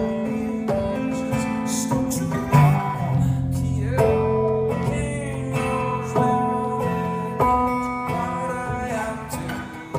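Acoustic guitar strummed steadily through the song's chord changes, played live and heard from the audience.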